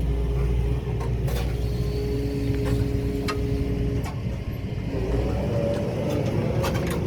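Excavator's diesel engine running with the whine of its hydraulics as it works stones into place: two steady whining tones that stop together about four seconds in, then a wavering whine. A few sharp knocks sound over the engine.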